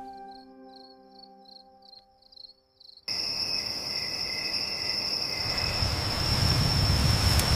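Crickets chirping in quick pulses under the last fading notes of soft music. About three seconds in, a loud steady high insect trill starts abruptly, with a broad rushing noise building beneath it.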